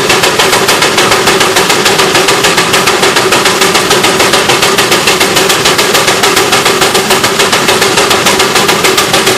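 Steam traction engine running while standing still, its exhaust chuffing fast and evenly at about five or six beats a second, with a steady tone underneath.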